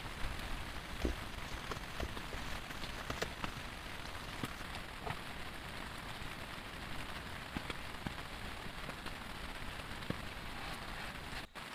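Heavy rain falling steadily, a dense hiss with scattered sharper drop ticks. The sound drops out for an instant near the end.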